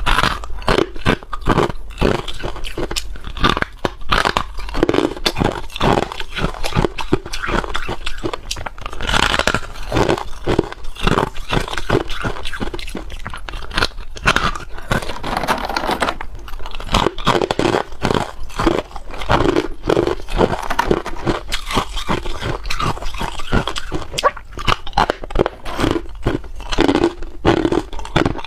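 A person biting and chewing hard clear ice: a continuous run of irregular, sharp crunches and cracks.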